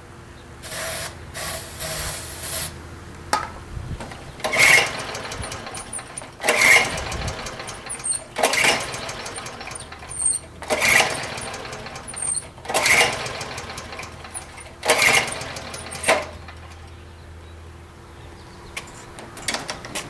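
Honda HR214 lawn mower's recoil starter pulled about six times, roughly every two seconds, the engine turning over but never catching after years of sitting, even with starter fluid. Near the start, three short hisses of starter fluid being sprayed.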